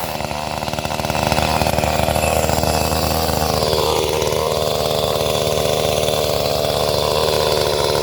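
Chainsaw running at high throttle while cutting through small trees, with a brief dip in tone about four seconds in.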